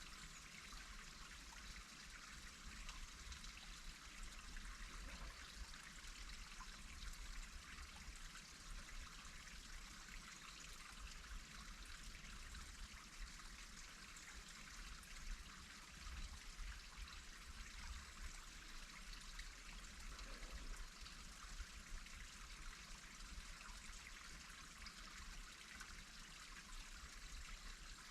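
Faint, steady rushing of running water, with a low rumble underneath.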